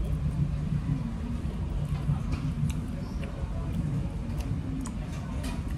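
Restaurant room sound: a low steady hum with faint indistinct background voices, and a few light clicks of tableware.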